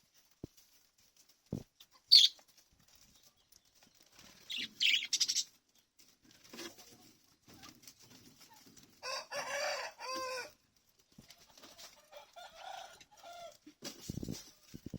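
Pet parrots calling: a loud sharp chirp about two seconds in, a cluster of high chirps around five seconds, and a longer, lower call about nine seconds in, with a few short knocks near the end.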